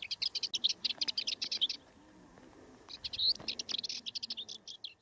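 A songbird singing: two phrases of rapid high chirping notes, with a gap of about a second between them.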